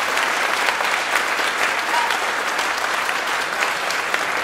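Audience applauding, a steady spatter of many hands clapping.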